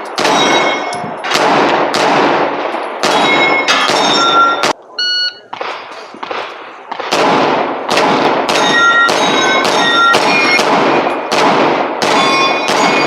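Rapid strings of semi-automatic gunshots, each hit followed by the ringing of struck steel targets. There is a short break a little after four seconds in, and then a fast run of shots.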